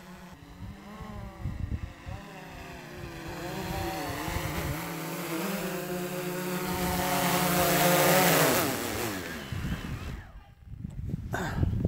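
DJI Phantom 3 Advanced quadcopter's propellers buzzing as it flies in close, the whine growing steadily louder, then sliding down in pitch and fading about ten seconds in.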